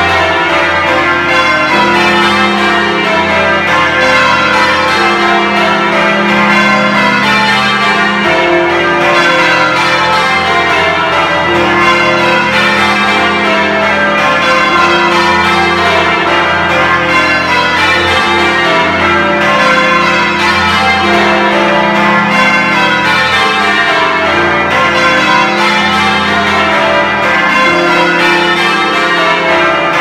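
Full-circle change ringing on a heavy ring of Taylor-cast church bells, heard loud and close from inside the bell chamber. The bells strike one after another without a break, over a lingering deep hum.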